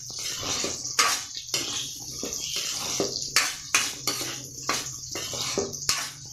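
Diced sweet potato frying in oil with a steady sizzle, while a spatula scrapes and knocks against the pan again and again as it is stirred.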